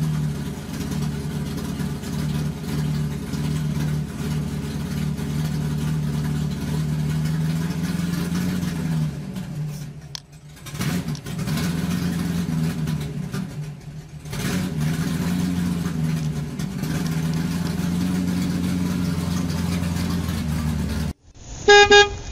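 Steady low engine-like motor drone, wavering a little in pitch, that drops away briefly about ten seconds in and again around fourteen seconds. Near the end it cuts off suddenly, and a short loud beep follows.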